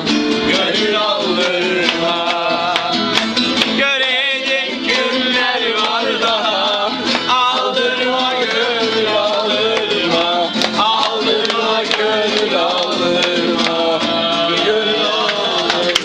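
Acoustic guitar and bağlama (saz) strummed live, with voices singing along.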